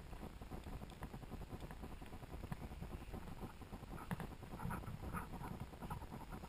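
Soft rustling and irregular light tapping from a hand-carried camera and the footsteps of the person carrying it, with a cluster of louder taps about four seconds in.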